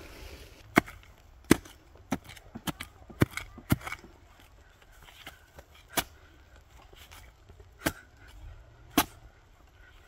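Machete chopping into the earth around a bamboo shoot to dig it out: a quick run of about six sharp chops in the first four seconds, then three more spaced a second or two apart.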